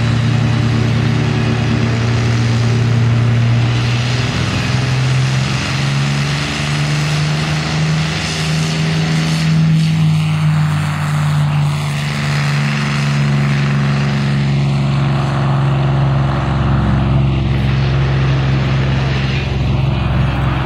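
P-51 Mustang's V-12 piston engine running as the plane rolls along the runway: a loud, steady, deep drone whose pitch shifts a little about four seconds in and again in the second half.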